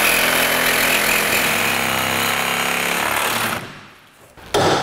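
Power reciprocating saw cutting through a rear strut's lower mounting bolt that has seized into its bushing. The saw runs steadily, stops about three and a half seconds in, and a brief loud noise follows near the end.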